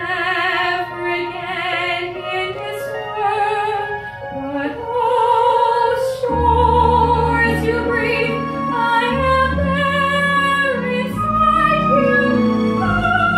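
A woman singing a musical-theatre song in a classical, operatic style, with vibrato on her held notes, over instrumental accompaniment. Deeper bass notes come into the accompaniment about six seconds in.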